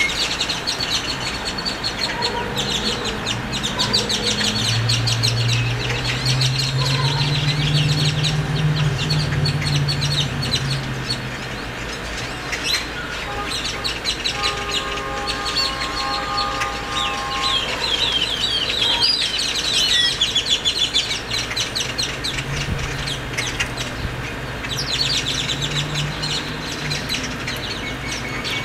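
A flock of great-tailed grackles chattering: rapid high chirps, clicks and whistles. The calls thin out in the middle and pick up again thickly near the end as the flock returns.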